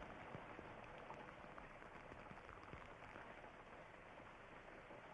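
Faint steady rain falling on puddled water and wet ground, with a few scattered drop ticks.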